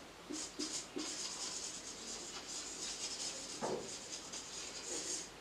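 Marker pen writing on a whiteboard: a string of short strokes in the first second, then longer stretches of scratchy rubbing as a word is written out.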